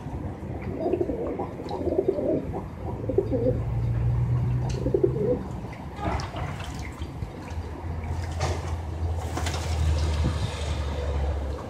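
Bango pigeons cooing for the first few seconds, then splashing and flapping their wings as they bathe in a shallow metal tray of water, the splashes strongest near the end. A steady low rumble runs underneath.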